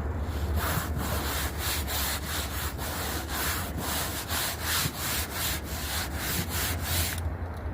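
Rhythmic scraping strokes, about three a second, which stop about seven seconds in, over a steady low rumble.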